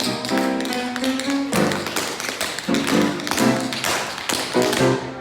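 Music with quick, sharp taps over it, typical of tap shoes dancing along to the tune.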